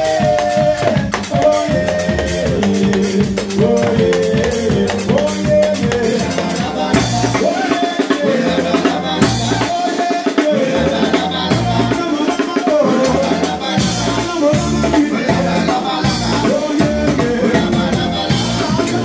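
Live band playing aleke music: a drum kit beating a steady rhythm under an electric bass line and keyboard, with a lead singer's voice over the top.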